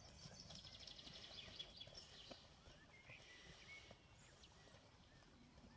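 Faint hoofbeats of a horse trotting on soft arena footing. A bird trills and chirps in the background during the first half.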